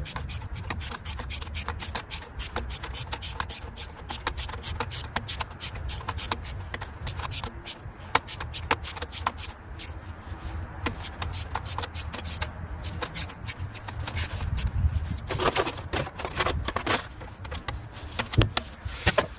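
Metal hand tools clinking, clicking and scraping against engine parts, with many quick irregular clicks over a steady low hum.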